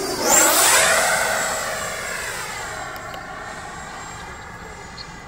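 Electric ducted fan of a Freewing F-86 Sabre 80mm RC jet flying past: a loud whine that drops in pitch as the jet goes by, then fades as it flies away.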